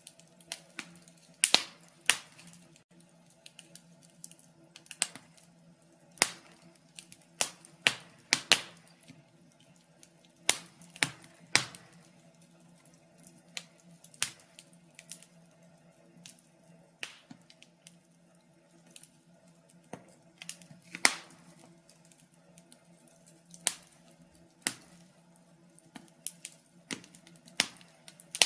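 Wood fire crackling in a fireplace: irregular sharp pops and snaps, roughly one a second and sometimes two or three in quick succession, over a faint steady low background.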